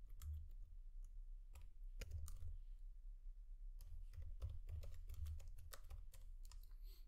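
Computer keyboard typing: faint, irregular key clicks as an address is typed out.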